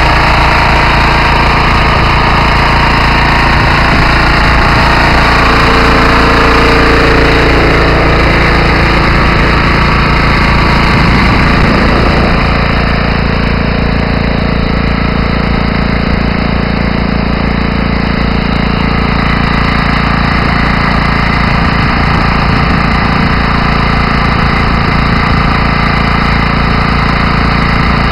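Diesel engine of a vacuum slurry pump unit running steadily under load while the pump discharges water through its hose. The sound dulls a little about twelve seconds in.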